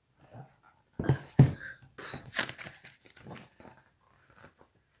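A large hardback book being handled close to the microphone: two heavy bumps about a second in, then paper and cover rustling with smaller knocks.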